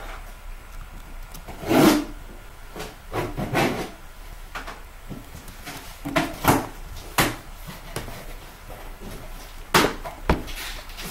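Hands handling cardboard card boxes and papers on a tabletop: about eight short rustles, scrapes and knocks, the loudest about two seconds in.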